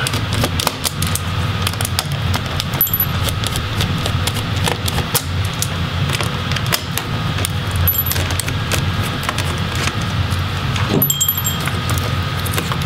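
Small, irregular metal clicks and ticks of a Phillips screwdriver backing screws out of a laptop's I/O board, over a steady low hum.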